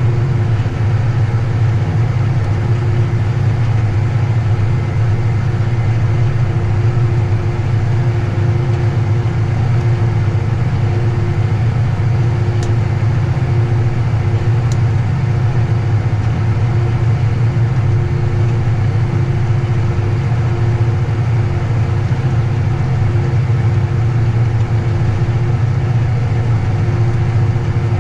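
A vehicle engine running at a steady speed, a loud, unchanging low drone with a faint steady hum above it and two faint ticks around the middle.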